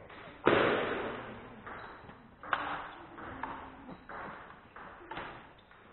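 Table tennis rally: the celluloid ball clicking sharply off bats and table at an irregular pace, with a louder knock about half a second in that rings on in the hall.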